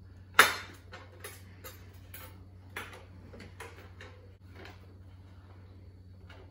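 Handling of a plastic hummus tub and a knife on a plate and glass tabletop: one sharp clack about half a second in, then a string of lighter clicks and taps that die away by about five seconds in.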